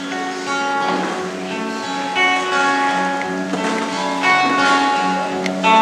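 Acoustic guitar playing the instrumental introduction to the sung responsorial psalm, several notes ringing on together.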